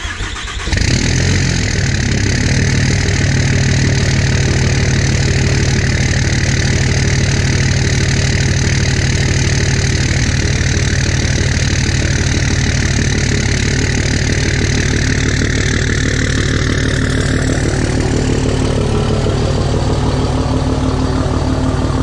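A 5.9 L Cummins turbo-diesel inline-six in a Dodge Ram cranks for under a second, catches, and settles into a steady idle on a cold start in air in the low 40s °F.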